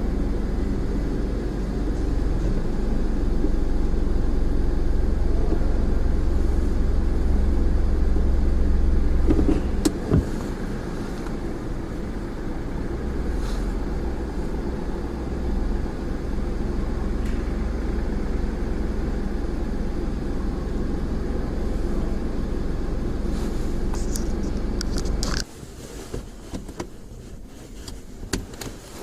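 Car engine running at low speed with a steady low rumble. The rumble cuts off abruptly about twenty-five seconds in, followed by a few light clicks and knocks.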